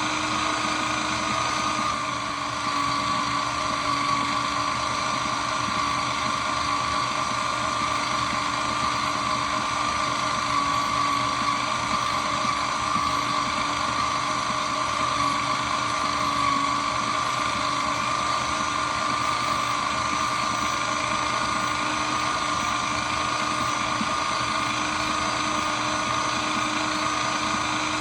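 Shredder machine running steadily with a constant whining hum and a rushing noise underneath, with no change in pitch or level.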